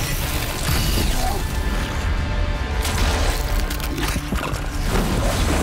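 A film soundtrack mix of music with fight sound effects: a heat-vision beam blasting and heavy impacts against a training robot.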